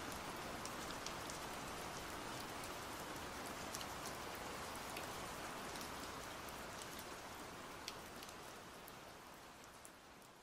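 Steady rain with scattered sharp drop ticks, slowly fading out toward the end.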